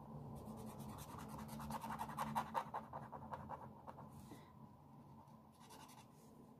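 Water-based felt-tip marker scratching across paper in rapid short strokes as an area is filled in with colour. The strokes are busiest about two seconds in and thin out over the last couple of seconds.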